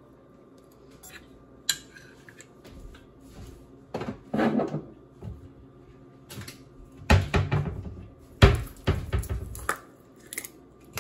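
Kitchen clatter of household items being handled, knocked and set down: a sharp click about two seconds in, a short noisy rattle around four seconds, then a run of knocks and bumps, the loudest about eight and a half seconds in.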